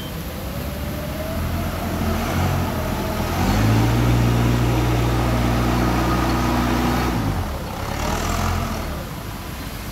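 Cat forklift engine running, revving up about a third of the way in and holding steady at higher revs for about four seconds before dropping back.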